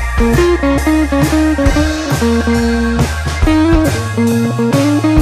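Background music: a plucked guitar melody over a steady bass, with a regular beat.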